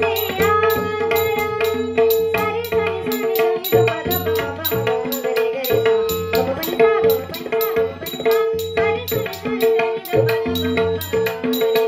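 Tabla playing a steady rhythm under a devotional Marathi song, with sharp high ticks on the beat and a held tone beneath a bending melody line.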